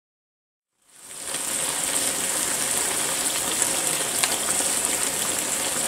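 Pan of diced zucchini and minced meat sizzling in a little water, a steady hiss that fades in from silence about a second in. A single faint utensil click about four seconds in.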